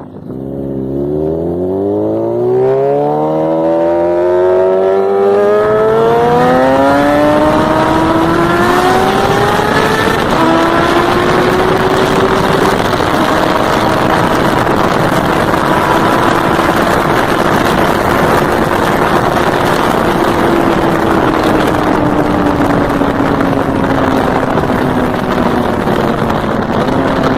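Suzuki GSX-R1000 sport bike's inline-four engine under hard acceleration, its pitch rising steadily for about ten seconds, then held at a high steady note with heavy wind and road noise, easing down slightly near the end.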